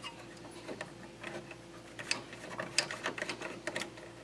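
Irregular light clicks and taps of small metal parts being handled on a pinball score reel assembly, coming thicker in the second half, over a faint steady hum.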